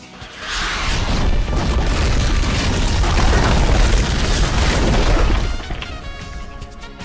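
Explosion sound effect: a loud, deep rumbling blast that swells about half a second in and dies away after about five seconds, over background music.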